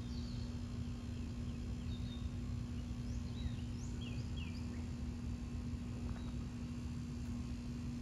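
Outdoor background noise with a steady low hum and low rumble, and small birds chirping faintly a few times in the first half.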